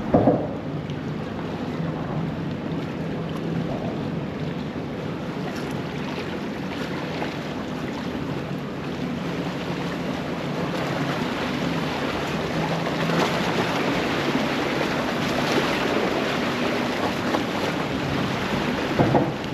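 Wind buffeting the microphone over water and surf noise, with a faint steady low drone like a boat motor underneath. A short thump comes just after the start and again near the end.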